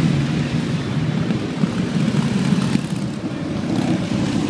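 Several motorcycles riding past one after another, their engines running steadily.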